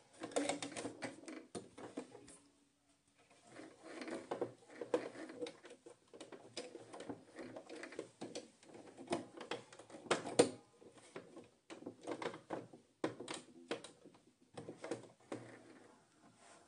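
Threading a domestic sewing machine by hand: quiet, irregular small clicks, rustles and scrapes of fingers and thread against the machine's plastic body and needle area, with a brief pause about three seconds in.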